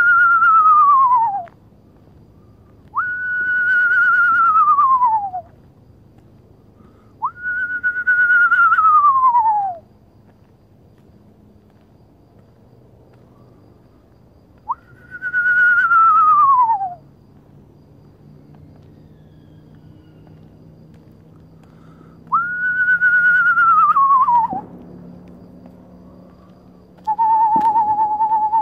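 Imitated eastern screech-owl calls, sounded to draw owls into answering: five descending whistled whinnies, each about two seconds long and a few seconds apart, then a steady, slightly quavering monotone trill starting near the end.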